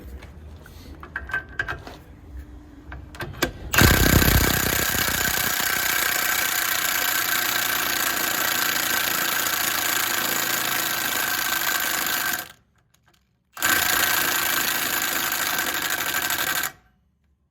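An impact wrench hammering away at a stuck wheel hub nut in two long bursts with a short pause between, the hub still refusing to come off. Faint clanks come before the first burst.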